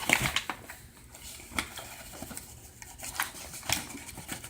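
A measuring cup and kitchen utensils clinking and tapping, as flour is measured out into a quarter cup. There are about half a dozen separate light knocks, with the clearest near the start and around a second and a half, three, and three and a half seconds in.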